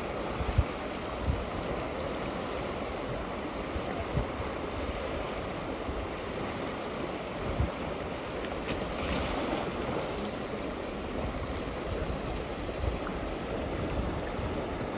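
River water rushing steadily in a current, with a few short low thumps and a brief brighter splash about nine seconds in.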